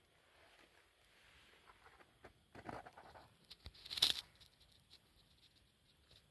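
Scattered crunches and clicks, the loudest a single sharp click about four seconds in, as of a hiker's footsteps and movement on dry, stony ground.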